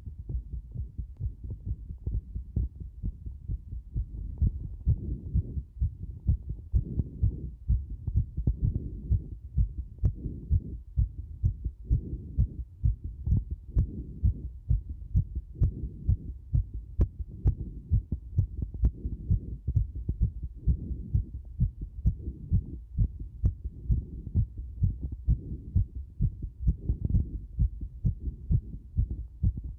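Human heartbeat recorded close to the chest, beating rapidly as a dense run of low-pitched beats.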